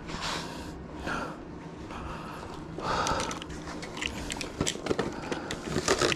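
A man's heavy breaths, a few short puffs, followed by rustling and sharp plastic clicks near the end as a plastic water bottle is pulled out of a handlebar bag.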